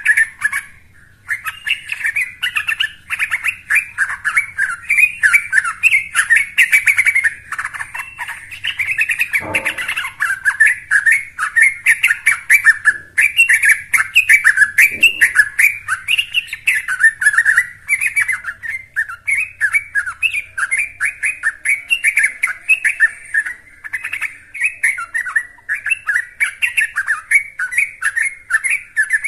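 Young yellow-vented bulbul singing non-stop: a rapid, bubbly run of chattering notes, pausing only briefly about a second in.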